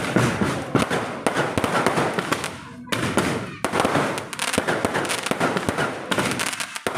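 Fireworks and firecrackers going off continuously in a dense, rapid crackle of many pops and bangs.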